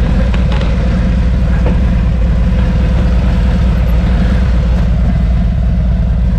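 Harley-Davidson V-twin engine idling steadily.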